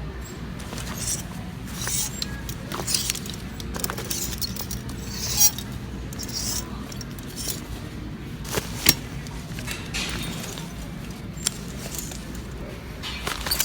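Metal clinks and rustling as items and their hangers are handled on the racks, with two sharper clicks about five and nine seconds in, over a steady store hum and faint background music.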